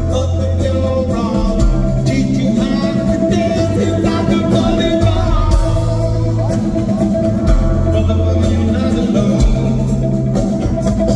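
Rock band playing with drum kit, bass and guitar, and a singing voice over a steady beat.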